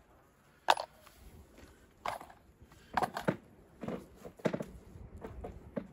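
Wooden knocks and clunks from a weathered plank and a wooden block being shifted and set in place: one sharp knock less than a second in, then a run of irregular clunks.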